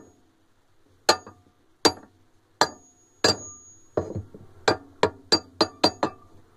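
Hammer blows on a flat steel spanner bar set on the left-hand-threaded nut of a Continental 15 kg washing machine's wash shaft, struck in the tightening direction to loosen the nut. About eleven sharp metallic strikes, some with a brief high ring, spaced out at first and coming faster near the end.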